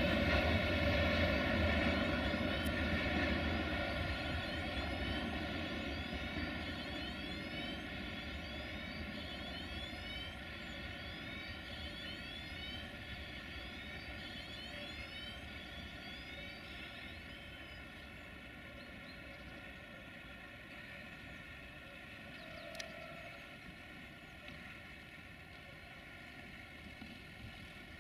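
Freight train of tank wagons rolling away along the track: a steady droning hum of several tones over a low rumble that fades gradually as the train recedes.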